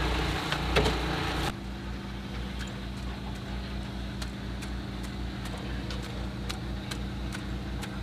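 An engine running steadily with an even low pulsing, with scattered light clicks and taps over it. The sound drops abruptly to a quieter level about a second and a half in, then runs on unchanged.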